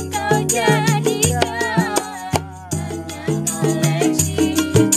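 Acoustic street-band performance of a dangdut song: a young woman sings an ornamented, wavering melody over ukulele strumming, a steady low beat on a hand drum made of plastic pipe, and a shaker.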